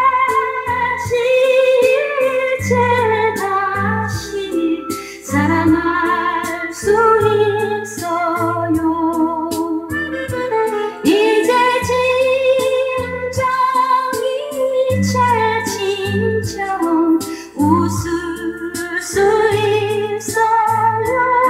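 A song with a female lead vocal over a backing band with steady bass notes, played back from a cassette on an Inkel DD-6200 double cassette deck.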